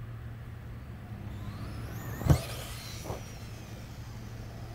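Electric RC truck motor whining, rising in pitch as it speeds up, then a hard thump a little past two seconds in and a lighter knock under a second later, with the whine falling away afterwards.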